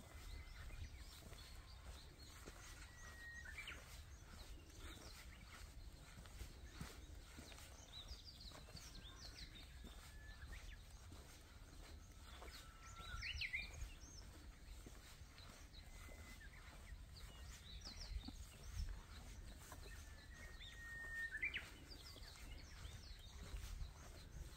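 Faint birdsong: a short call ending in a quick upward sweep comes about every eight or nine seconds, three times, with a few scattered higher chirps between, over a steady low rumble.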